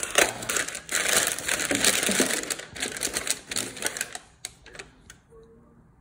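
Crumpled kraft packing paper and a cardboard box rustling and crinkling as hands dig items out of the packaging, a dense crackle of small clicks that dies away about four seconds in.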